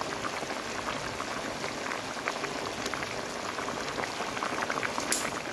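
Fish curry made with elephant apple boiling hard in a pan: a steady bubbling with many small pops. A brief, sharp, high hiss comes near the end.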